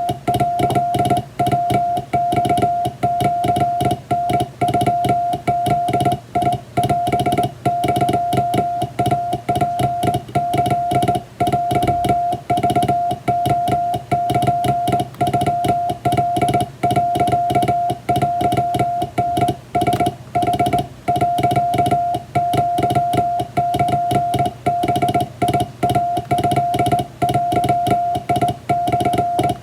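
Japanese Wabun Morse code sent by hand on a straight telegraph key: a steady mid-pitched tone keyed on and off in short dots and longer dashes, with brief gaps between characters.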